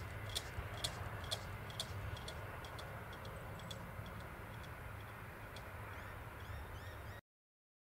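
Western Cullen Hayes mechanical crossing bell striking about twice a second, weak and fading away as the boom gates finish rising. A bird chirps a few times near the end, and the sound cuts off suddenly about seven seconds in.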